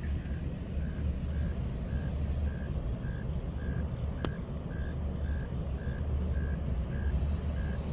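Railroad grade-crossing bell ringing steadily about twice a second, warning of an approaching train, over a steady low rumble. A single sharp click about four seconds in.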